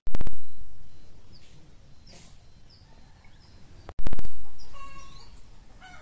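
Two heavy, sudden low booms about four seconds apart, each dying away over about a second, with small birds chirping and whistling in between.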